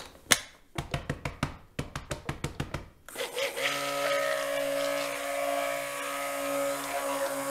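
A quick run of knocks as the stick blender's shaft is worked by hand against the plastic bucket. About three seconds in, the immersion blender switches on and runs steadily in the cold-process soap batter, blending the oils and lye water together.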